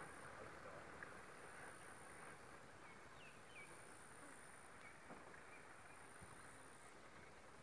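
Near silence: faint rural outdoor ambience, with a steady high insect whine and a few faint bird chirps about three seconds in.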